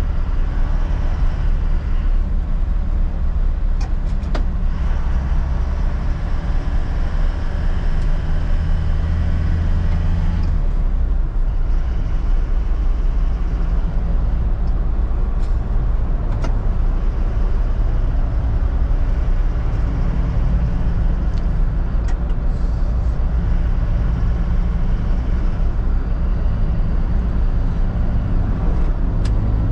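Cab noise of an Isuzu NLR light truck under way: its diesel engine running steadily with road and tyre rumble. The engine's note changes about ten seconds in.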